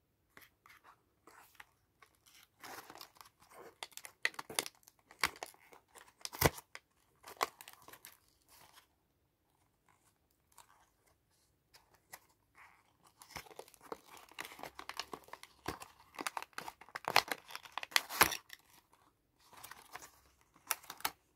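Cardboard-and-plastic cable packaging handled and opened by hand: crackling, crinkling and tearing as the box flap is pried open. Bursts of sharp crackles come at the start, then a pause in the middle, then a louder, denser run of crackling near the end.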